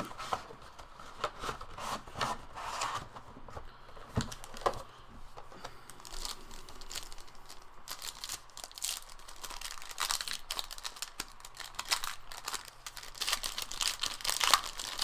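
Trading-card pack wrappers crinkling and tearing as a hobby box of basketball cards is opened: irregular crackling rustles, busier toward the end.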